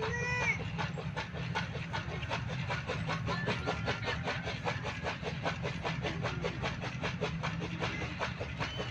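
A machine running steadily with a fast, even clatter of about five to six clacks a second over a low hum. A short, rising, pitched call sounds right at the start.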